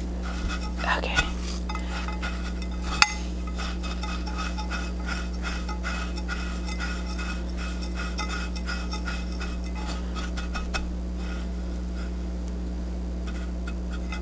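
Fingers pressing and turning a battered onion ring in a glass dish of panko breadcrumbs: a soft, continuous crackle of dry crumbs with small ticks against the glass, and one sharp click about three seconds in. A steady low hum runs underneath.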